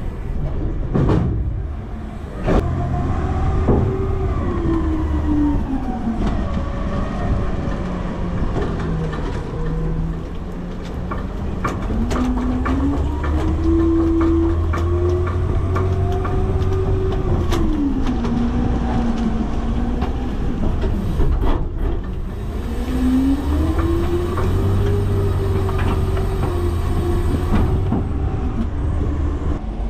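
Autocar/Heil front-loader garbage truck's diesel engine running under load, its pitch rising and falling several times as the truck drives and works its hydraulics, heard from inside the hopper. Scattered metal knocks and rattles from the body and the packer panel as it moves through the trash.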